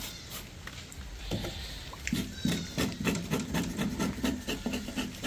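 Knife chopping and scraping a fish on a wooden surface: a run of sharp knocks with rubbing in between.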